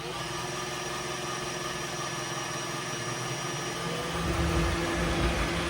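iRobot Roomba i7 robot vacuum running with its newly fitted suction motor: a steady whir of the fan and brushes, which sounds right with the Error 26 fault cured. From about four seconds in a louder low rumble joins as its replaced drive wheels start moving.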